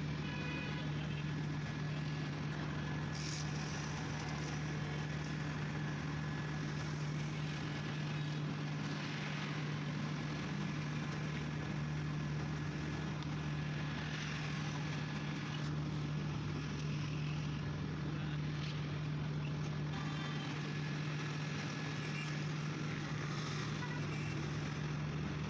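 A steady low machine hum under even background noise, with no clear strikes or changes.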